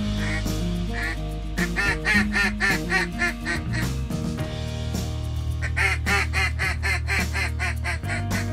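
Background music with a steady bass, over which a duck quacks in two quick runs of short quacks, the first about a second and a half in and the second around six seconds in.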